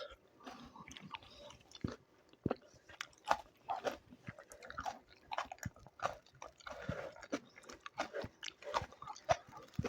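A person eating close to the microphone: irregular bites, crunches and wet chewing clicks.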